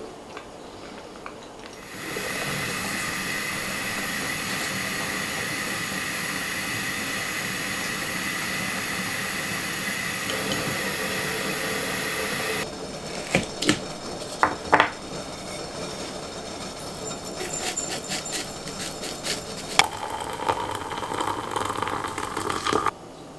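A steady hiss for about ten seconds, then a few sharp clicks and knocks. Near the end, water is poured from a kettle into a ceramic mug for about three seconds, cutting off suddenly.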